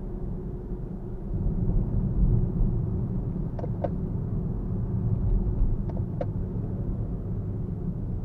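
Nissan Fuga 370GT Type S with its VQ37VHR V6 under way: a steady low road-and-engine rumble. Two pairs of short knocks come a little after halfway through.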